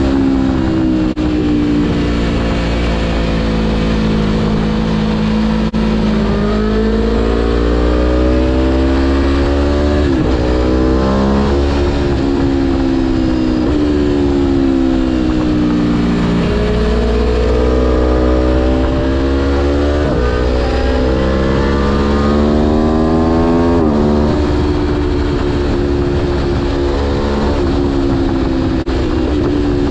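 Aprilia Tuono V4 1100 Factory's V4 engine under way, its pitch climbing and falling over and over as the throttle is opened and closed, with a few quick gear changes along the way.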